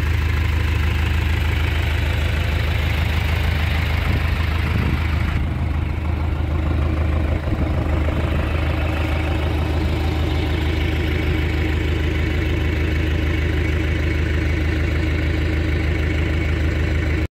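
Farm tractor engine idling steadily, a loud deep even hum with no revving.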